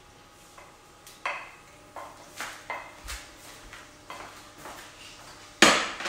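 Kitchen utensils and cookware clinking and knocking in an irregular run of light taps, with one louder clatter about five and a half seconds in.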